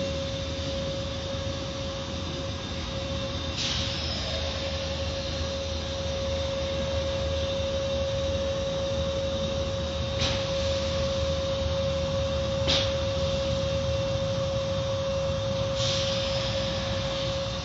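Car wash machinery running: a steady rushing noise with a constant mid-pitched tone under it, and four brief swishes spread through it.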